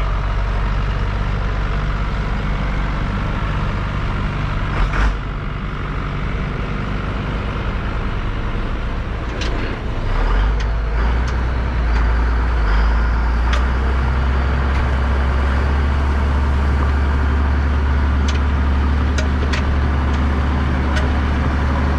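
Allis-Chalmers 7045 tractor's diesel engine running steadily under load. Its low note gets deeper and heavier about ten seconds in, with scattered clanks and knocks.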